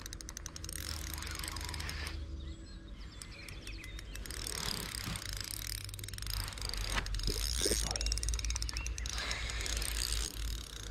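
Spinning fishing reel being cranked to retrieve line, its gears and rotor ticking rapidly as the handle turns.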